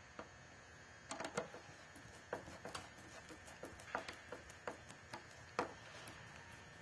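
Faint, irregular clicks and ticks as a hand screwdriver turns a wood screw down through a stainless deck fitting. There is a quick cluster of sharper clicks about a second in, then single ticks every half second or so.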